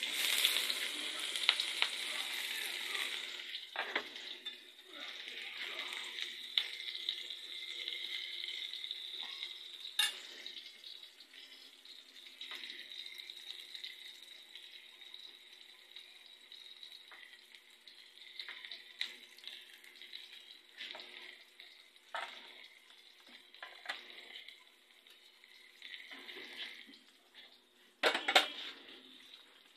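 Sliced red onion and garlic sizzling in hot oil in an aluminium pan: the hiss starts suddenly as they go in, is loudest over the first few seconds and slowly dies down, with light clicks of stirring. A louder clatter near the end.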